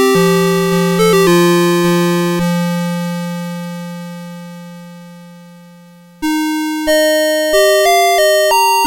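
CITIZEN Melody Box 30 series alarm clock's electronic melody chime: one tune ends on a held final note that fades away slowly, and about six seconds in a new tune starts abruptly with quick, bell-like synthesized notes that each fade after being struck.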